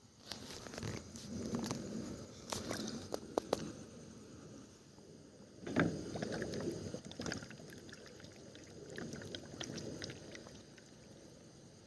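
Water sloshing and splashing, with scattered sharp clicks and knocks and a louder splash about six seconds in.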